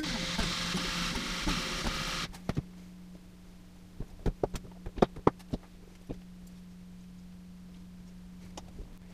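A small electric motor, likely a power string winder on the guitar's tuners, buzzes steadily for about two seconds and cuts off sharply. A run of light clicks and taps from handling the guitar follows, over a steady low electrical hum.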